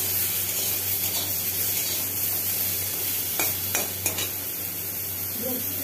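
Cauliflower and potato pieces sizzling steadily in hot oil in a kadai while a spatula stirs them, with a few knocks of the spatula against the pan a little past halfway.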